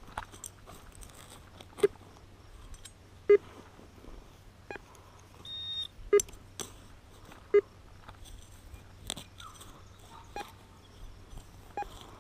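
Digging in farm soil: several sharp knocks and scrapes of a digging tool, with one short high beep from a metal detector about halfway through.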